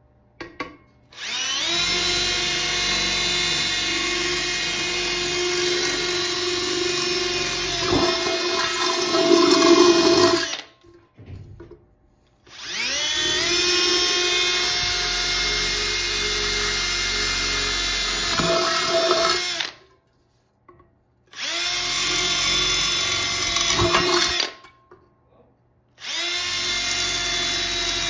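Milwaukee cordless drill boring holes through the side of a metal cooking pot: four long runs with short pauses between them, the motor's whine rising as each run starts.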